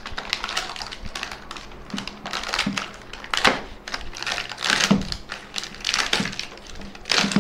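Crown band-type oil filter wrench being worked out of its clear plastic blister pack: crinkling plastic with many irregular clicks and taps, a few louder than the rest.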